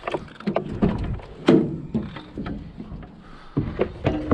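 Thin sheet-metal lampshade (light-iron scrap) clanking and clattering as it is picked up and handled, with a loud bang about one and a half seconds in and a burst of knocks near the end.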